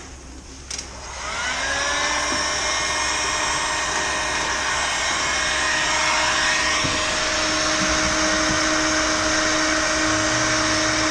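Electric heat gun switched on about a second in, its fan spinning up with a rising whine and then blowing steadily, shrinking adhesive heat-shrink sleeve onto a braided wiring loom.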